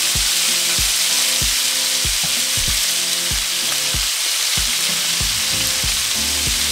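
Chunks of pork shoulder searing in hot vegetable oil in a cast-iron skillet: a loud, steady sizzle. Under it, background music with a steady beat.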